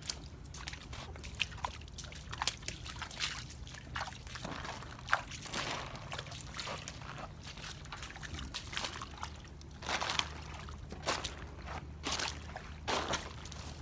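Irregular wet crackling and squelching of mud and soaked debris in a flood-damaged house, over a steady low hum.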